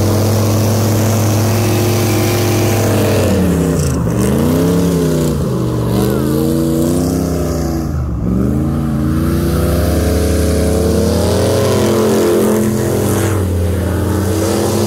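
Airboat's 383 big-block Chevy V8 driving its propeller, running loud, with the throttle easing off and opening up again several times before holding at a higher, steady pitch.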